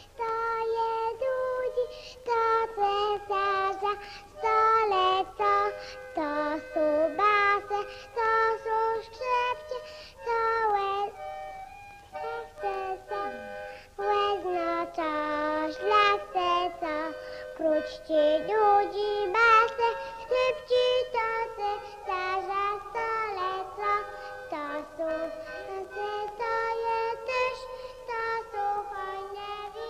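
A high-pitched voice singing a melody, note after note with short breaks between phrases.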